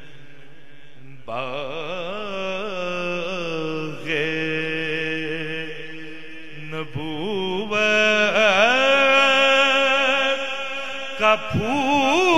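A man singing an Urdu manqabat in long, drawn-out melismatic notes with a wavering vibrato. The voice enters about a second in and grows louder a little past the middle.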